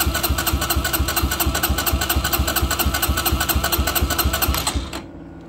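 Motorcycle electric starter cranking the engine with the spark plug disconnected, so it turns over in an even, rhythmic chug without firing, then stops about five seconds in. It keeps cranking at a steady pace under about 30–35 A from a lithium iron phosphate battery pack that holds near 11.7 V.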